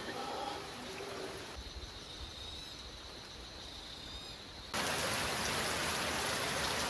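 Rain falling steadily on tropical garden foliage. About two-thirds of the way through it cuts suddenly to a louder, denser rain hiss. A few faint high chirps sound in the quieter first part.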